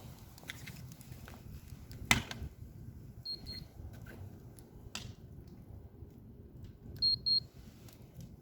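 Short high electronic beeps: two quick beeps about three seconds in and two louder ones near the end. A sharp knock comes about two seconds in, over a low rumble.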